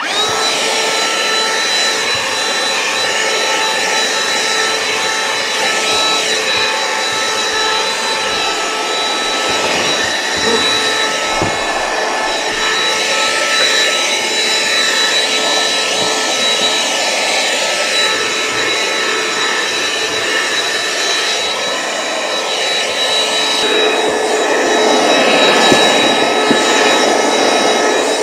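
Ryobi One+ cordless vacuum switching on and running steadily with a high whine, vacuuming carpet.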